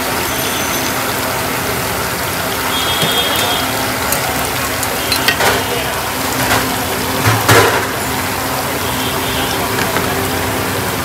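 Potato fries sizzling steadily as they deep-fry in a large wok of hot oil, with a few metal clanks of a ladle against the pan, the loudest a little past halfway.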